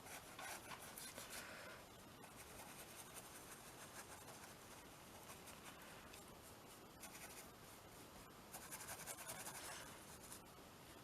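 Faint scratchy rubbing of a paintbrush worked over paper on a canvas. It comes in short spells, about a second in and again from about seven to ten seconds in.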